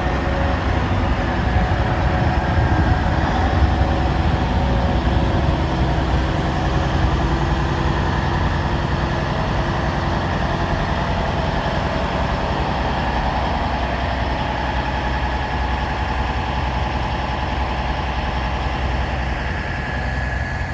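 Vehicle engines idling, a steady low rumble with a few steady higher tones laid over it.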